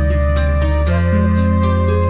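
Background music: a gentle instrumental with sustained bass notes and plucked notes, the chord changing about a second in.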